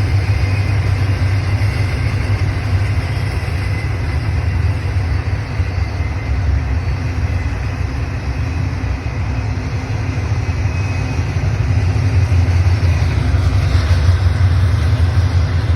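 Union Pacific freight train rolling past, a steady low rumble with a faint thin high tone above it.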